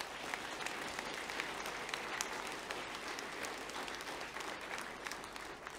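Audience applauding: a dense patter of many hands clapping, easing off slightly near the end.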